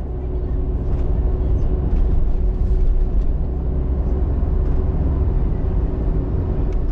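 Steady low rumble of a moving vehicle, with a faint even hum over it and a few light clicks.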